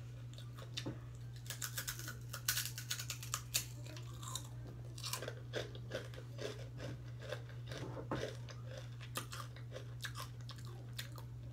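A person chewing crunchy hot chips: a run of crisp crunches with short pauses between bites. A steady low hum lies underneath.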